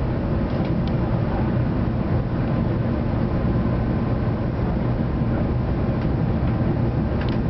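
Steady low rumble and hiss of a Shinkansen bullet train running at speed, heard from inside the passenger car.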